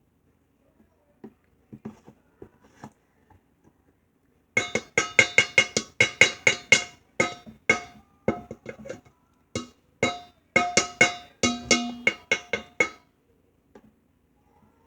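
A musical instrument played in quick runs of short, struck, ringing notes, several a second, with a brief break midway, after a few faint clicks at the start.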